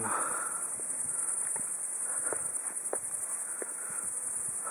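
Crickets in meadow grass chirring as a steady high-pitched hiss, with a few faint ticks and rustles close by.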